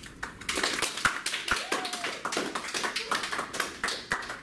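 A small group of people clapping: a short round of scattered, irregular claps that starts about half a second in and dies away near the end.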